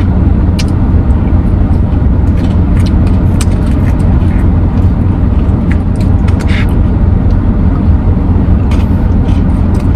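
Steady low vehicle rumble with scattered small clicks and taps.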